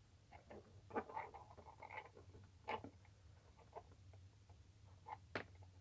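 Faint small plastic clicks and taps of LEGO pieces and a minifigure being handled on a tabletop. A cluster comes about a second in, then single sharper clicks near the middle and near the end.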